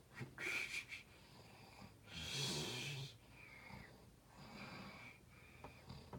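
A man snoring in his sleep: several rough breaths, some with a thin whistle, the loudest a long one about two seconds in.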